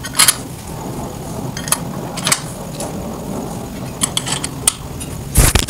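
Scattered light metallic clicks and taps of an Allen key working the screws of a motorcycle tank-lock mounting ring on the fuel filler cap, with a louder clatter near the end, over a steady low hum.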